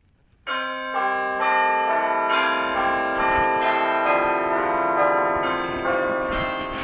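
Bells chiming: many overlapping ringing notes that sustain and pile up, with a new note struck about every half second, starting about half a second in after a brief silence.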